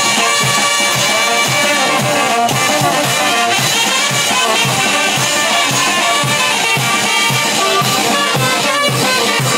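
A live brass band playing a steady dance rhythm: trumpets, saxophones and a sousaphone over congas and timbales.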